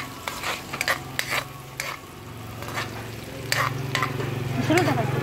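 Metal spatula scraping and stirring chopped shallots and green chilies sizzling in oil in an aluminium wok, in a run of short strokes. A steady low hum runs underneath and gets louder after about two seconds.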